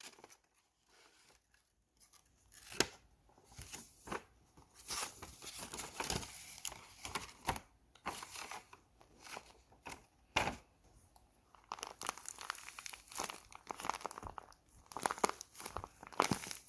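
Handmade squishy toy being squeezed and handled, crinkling and crackling irregularly, with a few sharper cracks.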